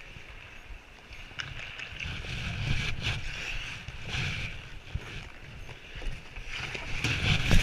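Ice skate blades scraping and carving on rink ice, with rumbling movement and handling noise on a camera worn by a bandy goalkeeper. It comes in several swells with a few short knocks, loudest near the end.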